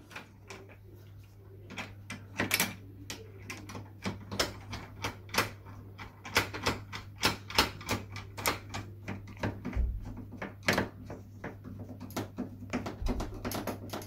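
Hand screwdriver driving the fixing screws of a new uPVC door handle: a long run of sharp, irregular clicks and ticks as the screw is turned, with a couple of dull knocks near the end.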